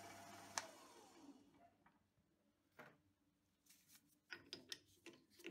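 Faint hum of a hobby metal lathe's motor, switched off with a sharp click about half a second in and spinning down within a second. Then a few light metallic clicks as a chuck key is fitted and turned in the lathe chuck to release the part.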